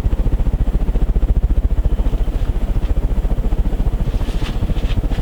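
Fanimation Ascension ceiling fan with 48-inch wood blades running on high, its air wash buffeting the microphone in a fast, even pulse.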